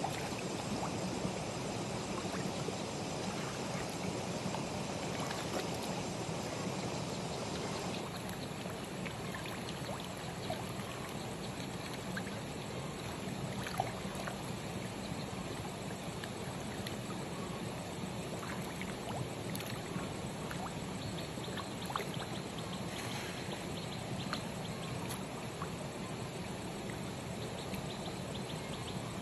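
Steady rushing, water-like noise over a koi pond, with scattered faint small splashes as koi break the surface.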